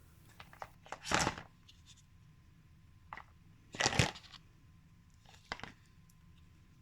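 Short crunching, rustling noises of potting materials being handled while a plant container is prepared: two louder ones about a second in and about four seconds in, with a few fainter ones between.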